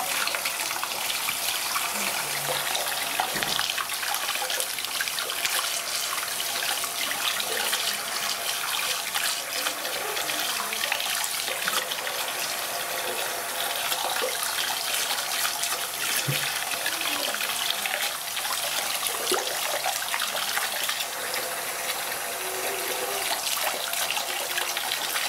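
Bathroom sink tap running steadily, the stream splashing over a small wet puppy and into the basin.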